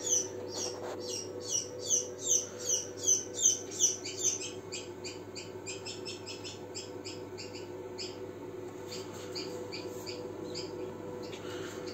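Newly hatched chick peeping inside an egg incubator: a rapid string of short falling peeps, about three a second, loudest over the first four seconds, then fainter and quicker. The running incubator's steady hum lies underneath.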